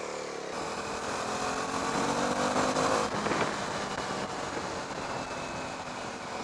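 KTM 390 Duke's single-cylinder engine pulling away, its note rising steadily for about two and a half seconds, then breaking off briefly at a gear change and running on more steadily, over the rush of wind noise.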